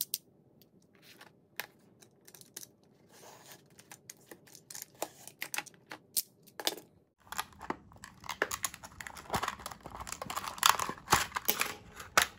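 Plastic blister pack being cut open with a snap-off utility knife: scattered clicks and scrapes at first, then from about halfway a louder, busier run of crackling and clicking as the stiff plastic is pulled apart and the pen's case taken out.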